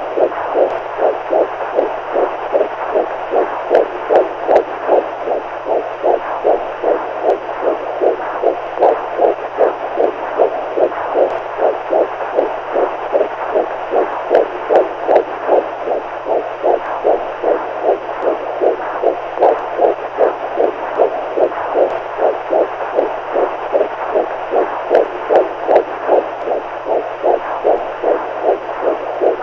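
Heartbeat sound beating steadily in an even rhythm, about two beats a second, played continuously as a sleep aid for babies.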